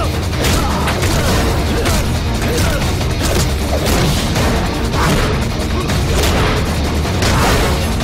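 Action-film fight soundtrack: loud music laid under repeated crashing impact effects of blows and bodies hitting the cage fence.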